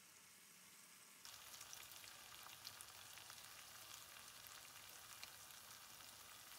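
Chicken karahi sizzling in oil and melted butter in a karahi pan: a steady, faint frying sizzle with fine crackles that grows louder about a second in.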